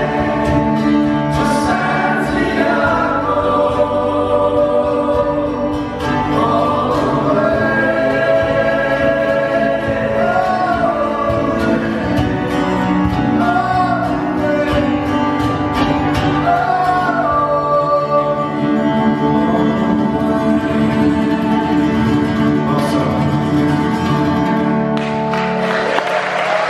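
Live acoustic folk song: several voices singing together with vibrato over strummed acoustic guitars. The song ends near the end and applause breaks out.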